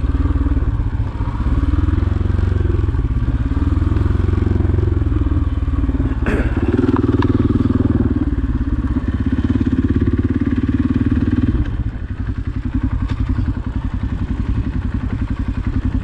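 Dirt bike engine running on a trail ride, its pitch rising and falling with the throttle. There is a sharp knock about six seconds in. Near the end the engine drops to a quieter, slower, even beat.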